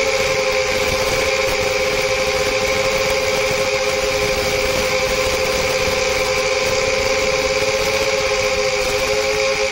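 Small FPV quadcopter's electric motors whining steadily in flight, with two close pitches that waver slightly, over constant hiss.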